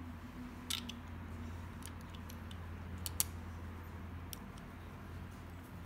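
Scattered light clicks and taps of a hand tool working small bolts, as the stepper motor is bolted back onto a 3D printer's extruder bracket, over a steady low hum.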